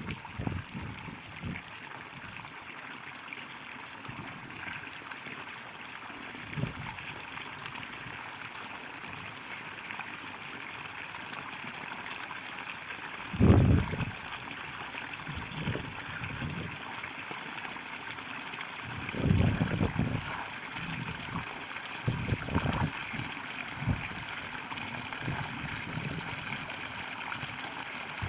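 Spring water trickling and running steadily. A few short low rumbles come through over it, the loudest about halfway through and again a few seconds later.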